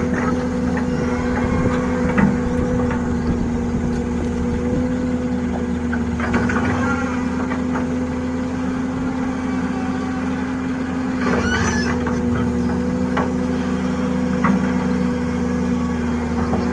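Excavator's heavy diesel engine running steadily at a constant pitch, with a few short scraping knocks about six and eleven seconds in.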